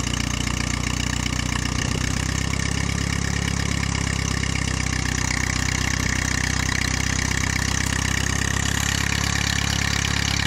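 1946 Case VAC tractor's four-cylinder engine running steadily as the tractor drives along in road gear.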